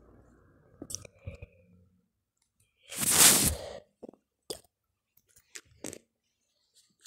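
Handling noise on a phone's microphone: scattered short clicks and taps, with one loud noisy burst lasting under a second about three seconds in.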